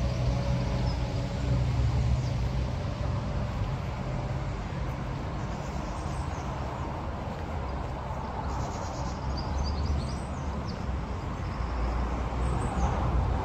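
Outdoor park ambience: a steady low rumble, with a few faint high bird chirps now and then.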